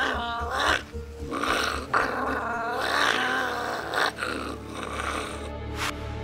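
Shiba Inu snarling and growling in repeated bursts as it fights the leash, with background music underneath; the dog falls quiet about five seconds in and the music carries on.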